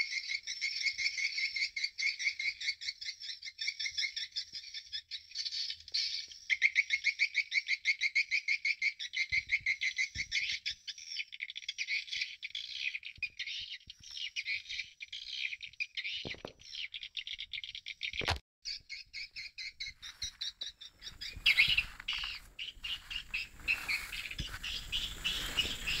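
Swiftlet lure call played through a swiftlet house's caller speakers: a dense, rapid run of high chirps, many a second, pulsing in short phrases. Two brief sharp clicks come about two-thirds of the way through, and a broader rustling noise rises in the last few seconds.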